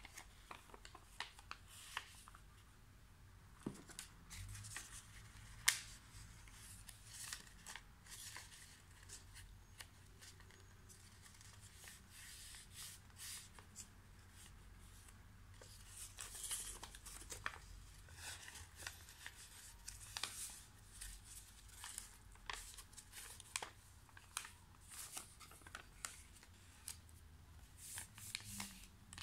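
A square sheet of origami paper being folded and creased by hand: faint crisp rustles and sharp paper crackles at irregular intervals.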